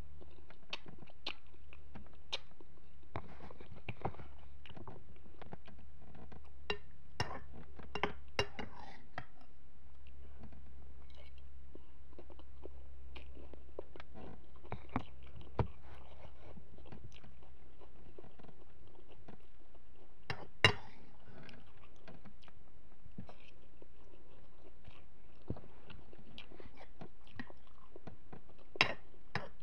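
Close-up eating sounds: chewing and slurping instant noodles, with scattered sharp clicks of a spoon against the bowl, the loudest about two-thirds of the way through and another near the end. A low steady hum sits underneath and fades out about halfway.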